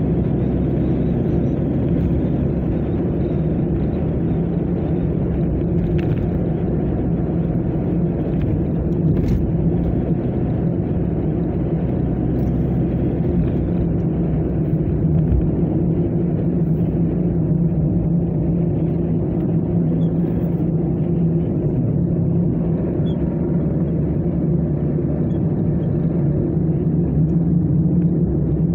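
Steady engine and tyre noise inside a moving car's cabin, a low, even drone.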